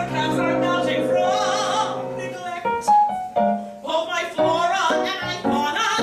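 A woman singing a cabaret song with piano accompaniment. She holds one long note with vibrato for about two and a half seconds, then sings on in shorter phrases.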